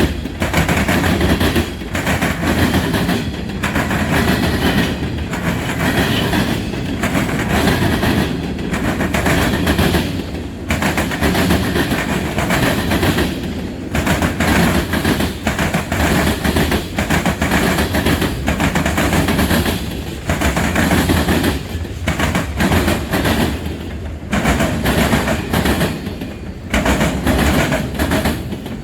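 Freight train cars rolling past: a steady rumble and clatter of steel wheels on the rails, with a repeating beat as car after car goes by.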